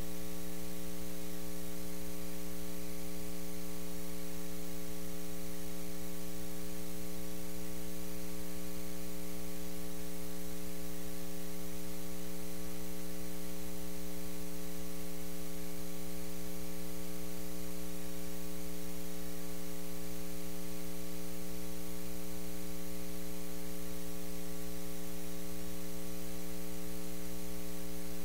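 Steady electrical hum on the audio feed: a constant buzz of several fixed tones over a faint hiss, unchanging throughout.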